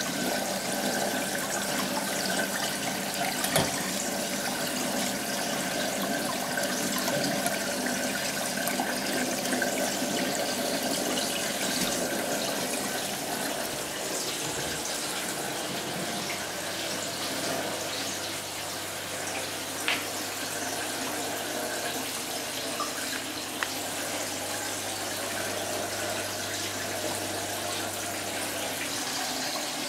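Water steadily running and splashing down from an aquarium overflow into plastic-tub sump chambers, with a low steady hum joining about halfway through.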